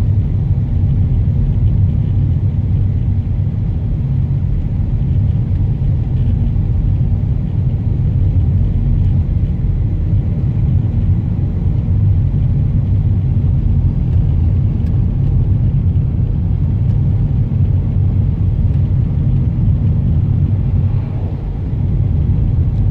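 Car driving: steady low engine and road rumble, dipping briefly near the end.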